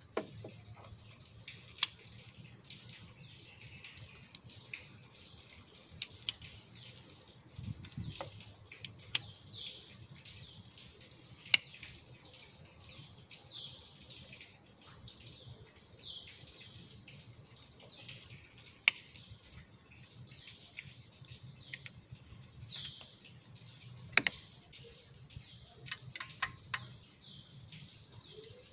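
Scattered sharp metallic clicks and taps as bolts and a hand tool are handled while the intercooler is bolted down on top of the engine. A bird chirps several times in the background, each a short falling note.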